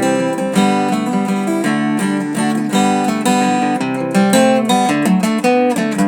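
Acoustic guitar strumming an instrumental break with no vocals.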